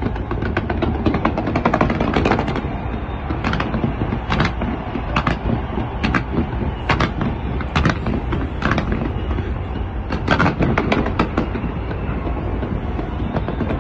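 Fireworks going off in rapid volleys: a dense run of sharp pops and crackles, with a louder single bang about once a second.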